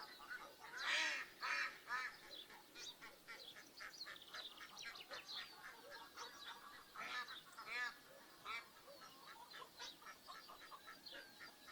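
Domestic ducks and geese calling, a busy, overlapping run of short quacks and honks, loudest about a second in.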